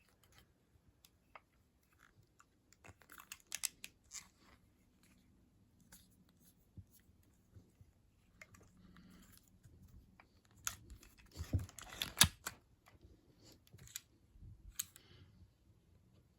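Handling noises from a Webley Tempest air pistol: scattered clicks and short rubbing sounds, with the loudest cluster and a sharp snap about twelve seconds in.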